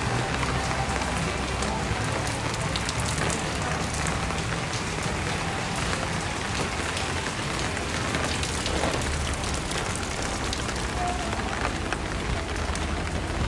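Steady rain falling on pavement and street: an even hiss with a low rumble underneath.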